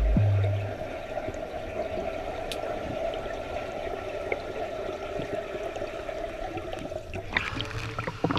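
Underwater ambience recorded by a submerged camera: a steady hum with a light bubbling hiss. About seven seconds in, the camera breaks the water's surface with a splash and a short burst of sloshing and dripping.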